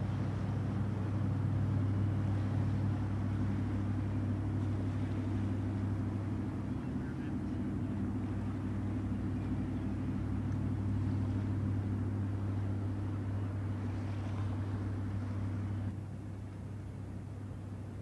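Steady low drone of boat engines on the water. It drops in level a couple of seconds before the end.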